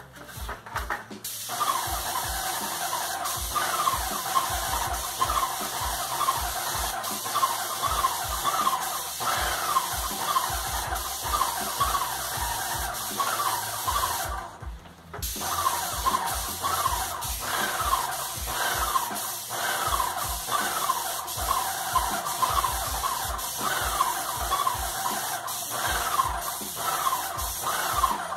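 Graco Magnum LTS 15 airless paint sprayer spraying paint: a steady hiss from the tip, with a fast repeating squeal and low knocking from the piston pump. The spray cuts off briefly about halfway, then resumes.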